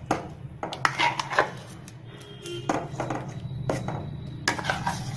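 Stainless-steel spoon scraping and knocking against a steel bowl and the rim of a cooking pot as thick blended lentil paste is scraped out into the simmering sambar: a string of irregular clinks and scrapes.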